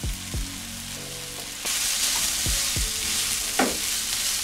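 Minced meat sizzling in a hot frying pan as it is tipped back in and stirred with a wooden spoon. The sizzle gets louder about a second and a half in, with a few soft knocks.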